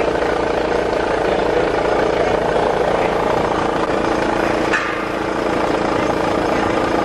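An engine running steadily at a constant idle, with one short knock about five seconds in.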